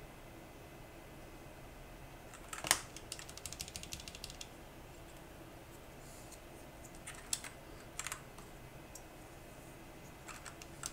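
Keystrokes on a Machenike K500 compact mechanical keyboard being typed on. There is one sharp press about two and a half seconds in, then a quick run of keystrokes, then scattered single presses and a few more near the end.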